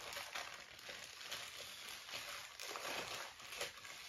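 Plastic bag around a Funko Soda figure crinkling and rustling irregularly as it is handled and unwrapped by hand.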